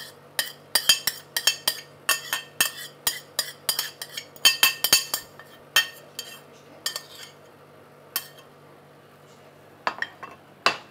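A spoon scraping and clinking against a plate as chopped vegetables are pushed off it into a glass bowl: a quick run of clinks and scrapes that stops about seven seconds in, then a couple more clinks near the end.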